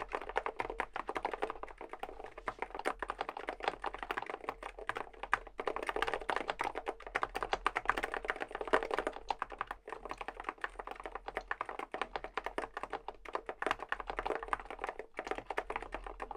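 Rapid, continuous typing on a Groovestone (Emstone) GS-series mechanical keyboard with Hanui-type switches, many keystrokes a second. The typing briefly lulls about ten and fifteen seconds in.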